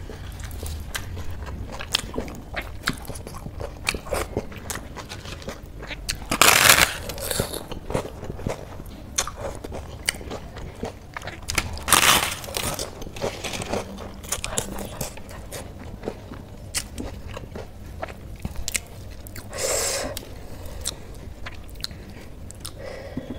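A person eating with her hand: steady chewing and wet mouth clicks, with three louder bites, the middle one into a fried puri.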